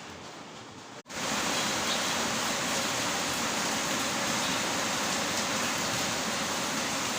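Heavy rain falling, a steady hiss. About a second in it cuts out for an instant and comes back louder and brighter.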